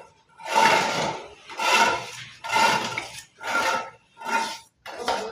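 Steel mason's trowel scraping over wet cement plaster in six even strokes, about one a second, as the corner edge of a door jamb is smoothed.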